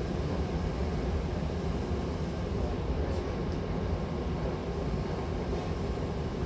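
Hankyu Takarazuka Line electric commuter train running between stations, heard from inside the car: a steady rumble of wheels on rail.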